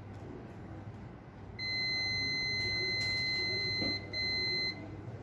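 Digital multimeter's continuity buzzer: a steady high beep of about two and a half seconds starting about a second and a half in, then after a brief break a second beep of about half a second. The beep signals a low-resistance path between the two probed points on the circuit board.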